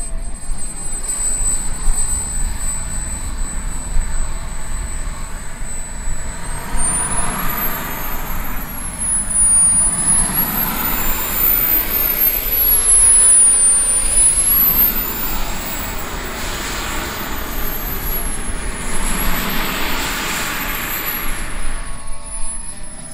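Model jet's small turbine engine whining during its takeoff run. The high whine holds steady, then rises about six seconds in and swings up and down in pitch several times as the jet rolls and lifts off.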